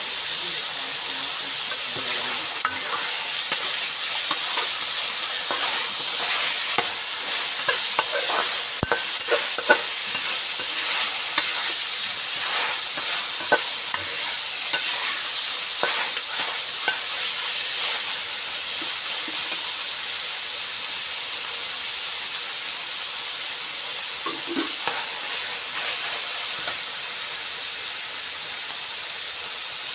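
Chicken pieces sizzling in hot oil in a wok, with a steady hiss, while a metal spatula stirs them, scraping and clinking against the wok, mostly in the middle stretch.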